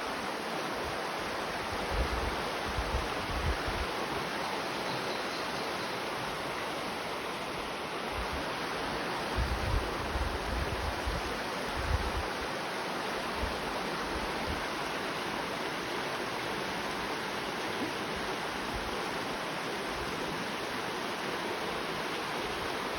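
River water rushing steadily over rocks, a constant even hiss with no break. A few brief low thumps on the microphone come about two to four seconds in and again around ten to twelve seconds.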